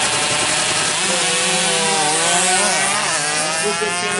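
Two 116 cc two-stroke underbone drag bikes launching and accelerating hard down the strip, the engines revving high with pitch climbing and dropping back at each gear change.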